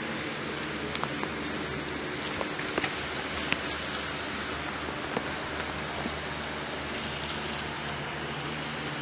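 N-scale model Tokyu 300 series tram running on layout track: a steady hiss and low hum with irregular light clicks scattered through, most in the first few seconds.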